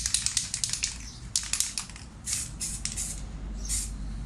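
Aerosol can of Yamaha outboard touch-up paint spraying in a series of short hissing bursts with brief pauses between them, as paint is dabbed on in light passes.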